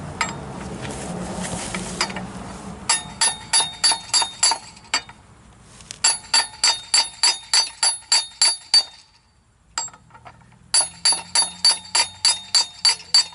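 Three runs of quick hammer blows, about four to five a second, on a 30 mm socket used as a drift, each strike ringing sharply off the steel. The blows are driving the spindle out of a failed front wheel bearing held in a vise.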